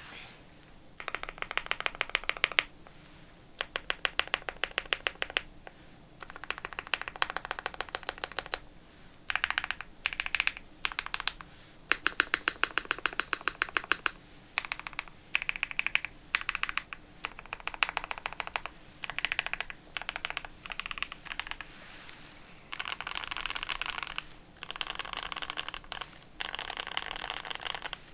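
Typing on a mechanical keyboard: a foam-dampened Pixelspace Endless80 with lubed Gateron Ink Black linear switches on a polycarbonate plate and GMK ABS keycaps. Fast runs of keystrokes come in bursts with short pauses between them.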